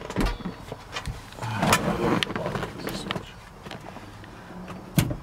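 Scattered clicks, knocks and rustling from someone moving about inside a pickup truck's cab. A single sharp knock about five seconds in is the loudest sound.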